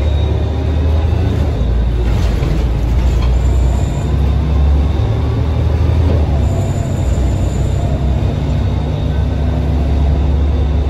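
Rear-mounted Scania OSC11 11-litre six-cylinder turbocharged CNG engine of a Scania L113CRB bus, heard inside the passenger cabin as the bus drives: a steady low engine rumble with road noise that swells and eases slightly. A faint high whine runs underneath.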